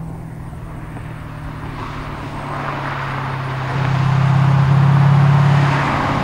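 1988 Callaway Twin Turbo C4 Corvette's turbocharged V8 running on track, a steady low engine note that grows louder from about two seconds in and is loudest between about four and five and a half seconds in.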